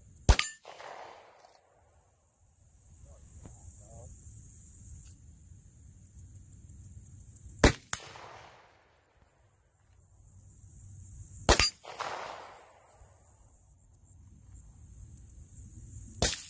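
Four single gunshots several seconds apart, each followed by a short ringing tail.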